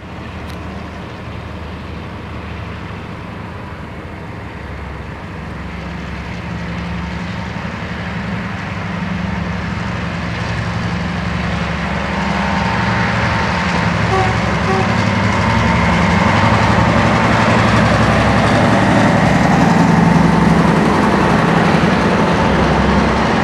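EMD SW1500 switcher locomotive's 12-cylinder diesel engine pulling a freight train, growing steadily louder as it approaches. In the second half the rolling noise of tank-car wheels on the rails builds up with it.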